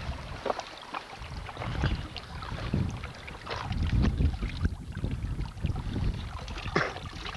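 Wind buffeting the microphone as an uneven low rumble, with a few sharp clicks and knocks, such as shoes on loose stones.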